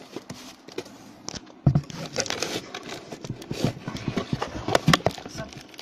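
Hands handling a paper-wrapped gift box close to the microphone: an irregular run of clicks, knocks and paper crinkling, with a sharper knock about a second and a half in.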